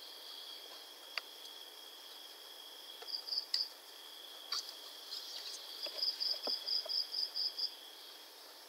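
Faint chirping insects: a steady high drone, with short runs of quick high chirps, about five a second, around three seconds in and again from about six to nearly eight seconds. A few faint clicks are heard among them.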